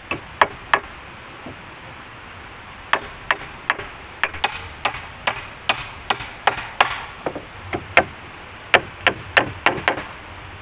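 Sharp blows of a hand tool striking wood: three at first, then after a pause of about two seconds a steady run of about two to three blows a second, over a steady hiss.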